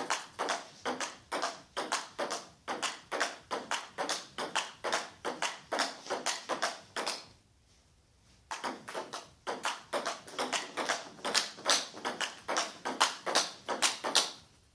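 Table tennis ball clicking off bats and table in a steady rally, about three or four hits a second. The hitting stops for about a second near the middle, then the rally picks up again.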